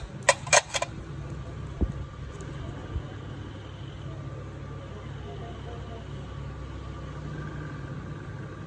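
Steady low mechanical hum, with three quick sharp clicks about half a second in.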